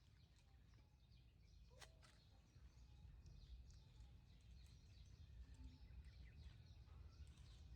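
Faint, scattered chirps of small birds, with a low rumble underneath that grows louder about two and a half seconds in. A single sharp click sounds about two seconds in.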